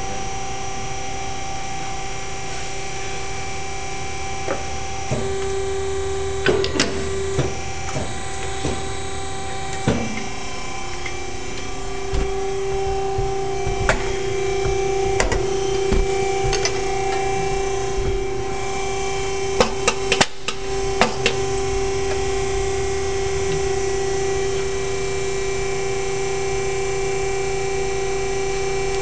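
Geka hydraulic ironworker running, its hydraulic pump giving a steady hum, with scattered sharp clanks of the punch working steel and several close together about two-thirds of the way through.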